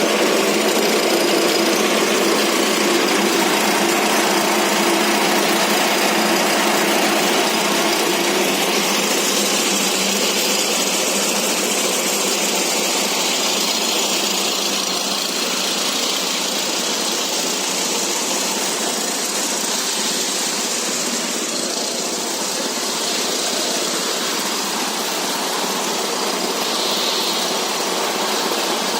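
Animal-feed pellet mill driven by a 22 hp diesel engine, running steadily.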